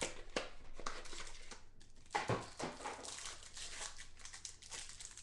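Plastic wrapper of a football trading-card pack crinkling and tearing as it is opened by hand, in irregular rustles with the loudest a little past two seconds in.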